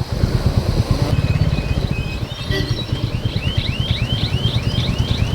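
Motorcycle engine running with a low, rapid thudding while under way. From about two seconds in, a short high rising chirp repeats about three times a second over it.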